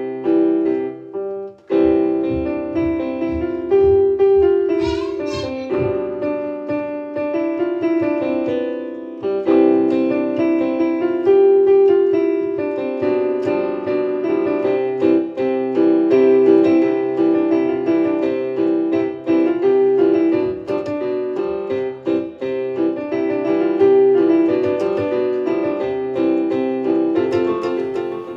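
Background piano music, a steady run of notes with a short pause about a second and a half in.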